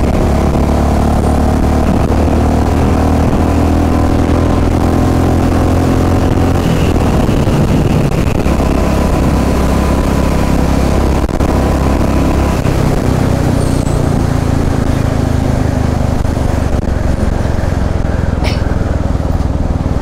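Royal Enfield Classic 350's single-cylinder engine running on the move through a short Punjab silencer with the catalytic converter kept, heard from the rider's seat. The exhaust note is steady, loud and somewhat bassy and softened, its pitch dipping and rising a few times as the throttle changes.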